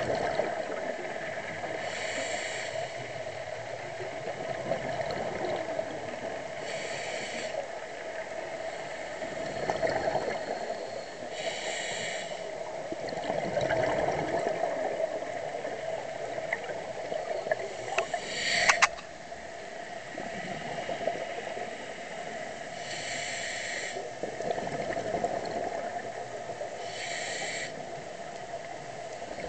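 Scuba diver breathing through a regulator underwater: a short hiss about every five seconds, with bubbling in between, over a steady drone. One sharp click about two-thirds of the way in is the loudest sound.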